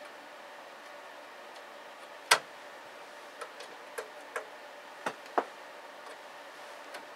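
A handful of small, sharp metallic clicks and taps from fiddly little screws being handled against a linear amplifier's metal chassis, the sharpest about two seconds in and the rest scattered through the middle.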